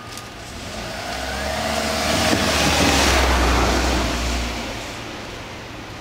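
A small car driving past over the level crossing, its engine and tyre noise swelling to a peak about three seconds in and then fading away.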